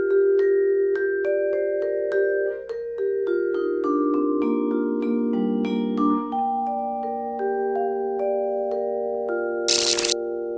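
Music: a slow melody of ringing, held notes struck one after another, with a short burst of noise near the end.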